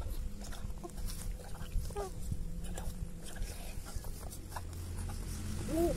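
A young baby's short cooing sounds, once about two seconds in and again near the end, over a steady low hum.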